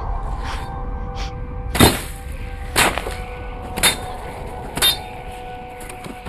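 Score music of steady held tones, struck by four sharp clanging hits about a second apart, slowly growing quieter.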